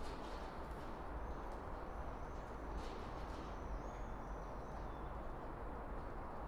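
Steady background hiss with a low hum underneath: room tone. A few faint, high, wavering chirp-like tones come and go in the middle, with a few faint clicks.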